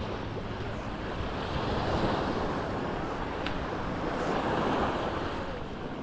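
Sea waves breaking and washing up the shore, swelling louder twice, with wind rumbling on the microphone.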